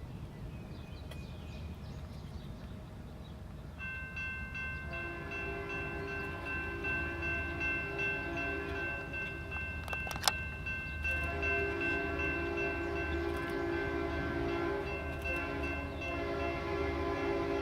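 Freight train diesel locomotive's air horn sounding a long chord of several notes from about four seconds in, its lower notes dropping out briefly midway, over the low rumble of the diesel engines. A single sharp click midway.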